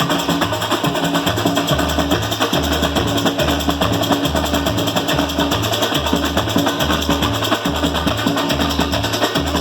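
Samba school bateria playing a samba beat: deep surdo bass drums alternating in a steady pulse beneath a dense, continuous rattle of snare drums and small percussion.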